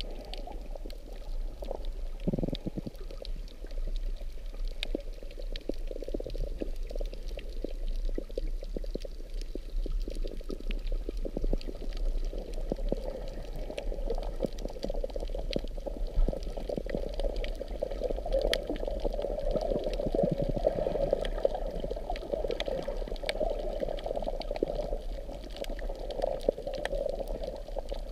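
Muffled underwater water noise heard by a submerged camera: a steady sloshing, bubbling wash with many faint scattered clicks, swelling a little in the second half.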